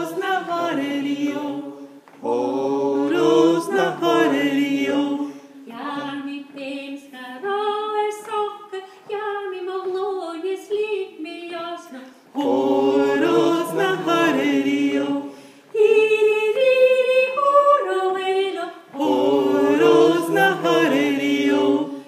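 Unaccompanied Scottish Gaelic reaping song sung by a woman, with many voices joining in on the louder chorus lines, which alternate with her quieter solo lines.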